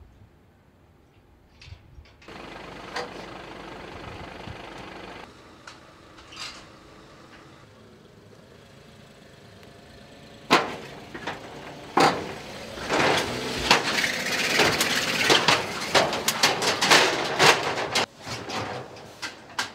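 A Smart fortwo being driven up the steel ramps of a car-transporter trailer. Steady engine noise runs for a few seconds, then from about ten seconds in there is a dense run of loud metallic clanks and rattles as the wheels roll over the deck plates.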